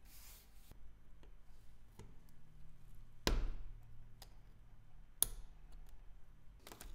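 Small sharp clicks and taps of a wristwatch and watchmaker's tools being handled while the leather strap is taken off. There are half a dozen separate clicks, the loudest about three seconds in and another sharp one a little after five seconds.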